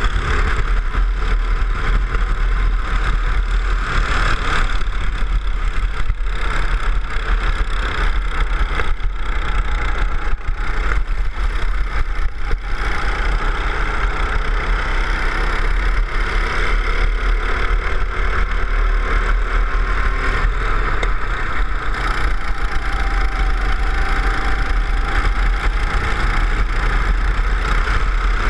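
Go-kart engine running at speed on the track, its pitch drifting up and down as the kart accelerates and slows, with heavy wind rumble on the onboard microphone.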